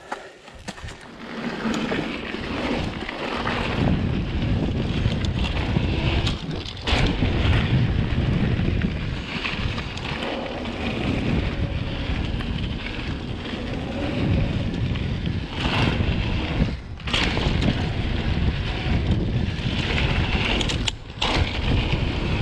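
Wind buffeting an action camera's microphone over tyre rumble on a dirt trail as a mountain bike rides fast. The noise builds over the first few seconds as speed picks up, then holds steady with a few brief drops.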